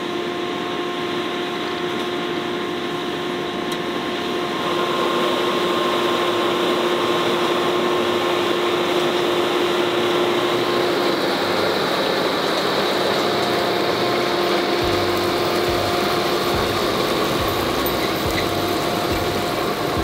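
John Deere tractor engine running steadily under load while pulling a Double L 951 potato windrower, with the windrower's digging and separating chains clattering and rattling as they lift and shake the potato rows. The sound grows louder about five seconds in.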